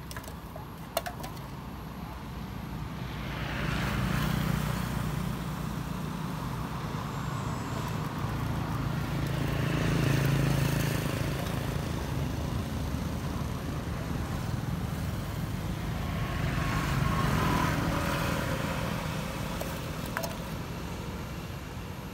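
Motor vehicles passing one after another, three in turn, each engine sound swelling and fading over several seconds over a steady low hum.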